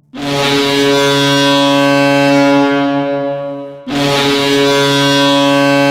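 Ice hockey arena goal horn sounding two long, loud blasts, the first about four seconds, the second following after only a brief break; the horn signals a home-team goal.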